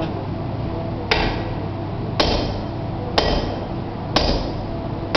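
Sledgehammer blows on glowing-hot steel on a blacksmith's anvil, about one a second, each a sharp clang with a brief metallic ring.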